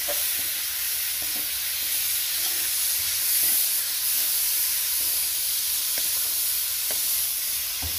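Raw chicken pieces being stirred into hot fried masala in a metal pan with a steel spoon: a steady sizzle with a few light clicks of the spoon against the pan.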